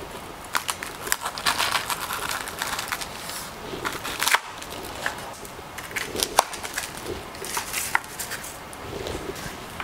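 Kitchen knife cutting through a baked florentine slab, the crisp caramelized almond layer and cocoa cookie base crunching and crackling under the blade, with many sharp snapping clicks.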